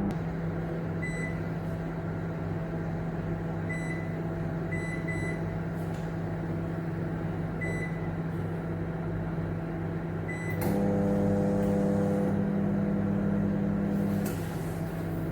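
Homelux HMO-SM25L commercial microwave oven running with a steady low hum, with several short high beeps from its touch control panel. The hum grows louder about ten and a half seconds in and drops back shortly before the end.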